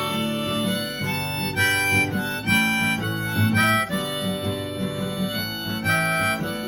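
Harmonica playing a short melodic break of held notes over strummed acoustic guitar chords, as an instrumental interlude between sung verses of a folk song.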